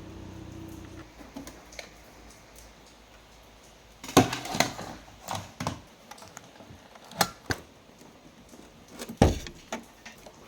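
Small hard objects such as tools and parts handled on a workbench: a series of sharp clicks and knocks, loudest about four seconds in and again near the end. A low steady hum cuts off about a second in.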